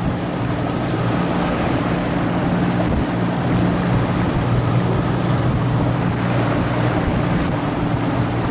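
Outboard motor running steadily at an even pitch, pushing an inflatable PVC boat along, with water and wind noise over it.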